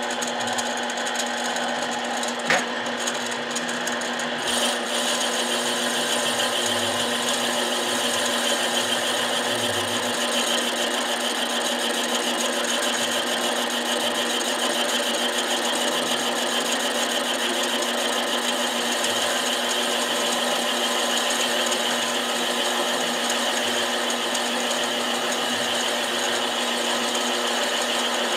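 Harbor Freight mini lathe running steadily while a metal part is turned, a motor whine with several fixed tones. There is one sharp click about two and a half seconds in, and the sound turns brighter and a little louder about four and a half seconds in.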